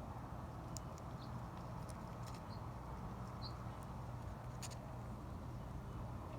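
Faint steady low background hum with a few soft clicks and two brief faint chirps.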